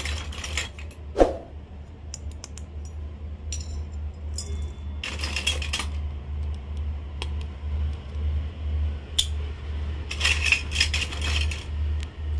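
Small stainless steel toy pots, plates and cups clinking and rattling as they are handled and set down on a concrete floor. The clinks come in a few short clusters, with one sharper ringing clink about a second in. A low steady hum runs underneath.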